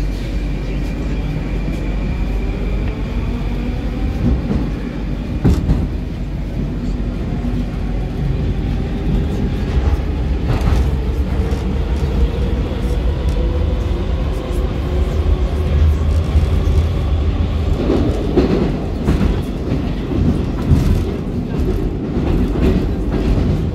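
Moskva-2019 metro train accelerating away from a station into the tunnel, heard from inside the car. Its traction motor whine rises in pitch over the wheel-on-rail rumble, with a few sharp clacks from the rails.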